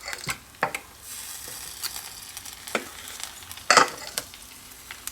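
A spoon scraping and knocking in a bowl as thick lime custard is scooped into pastry cases, a few short strokes with the strongest about three and a half seconds in. A faint sizzle from the hot pie maker runs underneath.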